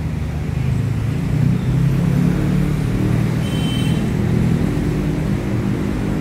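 A car engine running close by, a low steady hum that swells slightly about two seconds in.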